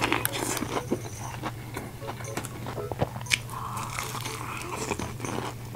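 Biting into crispy fried chicken and chewing the crunchy batter coating, with many short, sharp crunches and crackles.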